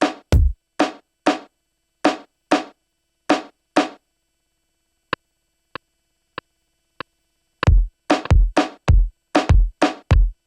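Akai MPC One playing a reggaeton drum-machine pattern: the kick drops out about half a second in, leaving the sharper hits, then after a pause four light ticks sound a beat apart and the full pattern with a deep kick comes back in near the end.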